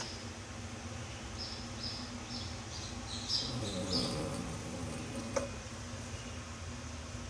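A sleeping pet snoring, with a run of short, high squeaky peeps about twice a second and a low rumbling breath in the middle.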